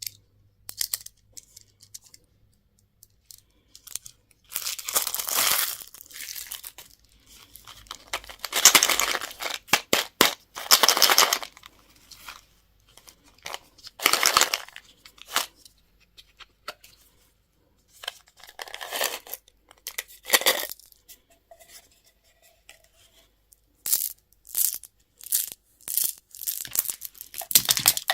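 Candy and toy packaging being torn open and crinkled, in separate rustling bursts a second or a few long, with a run of quick sharp clicks and snaps near the end.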